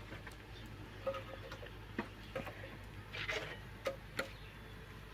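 Pieces of dry firewood knocking and clattering together as they are picked out of a woodpile by hand: irregular light knocks, about one a second, with a brief scrape about three seconds in.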